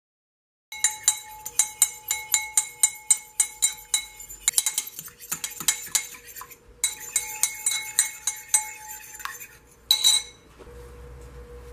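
Metal fork beating an egg in a ceramic bowl, the tines clinking against the bowl in a quick rhythm of about four strokes a second, later less even. Near the end the fork is set down in the bowl with one louder ringing clink.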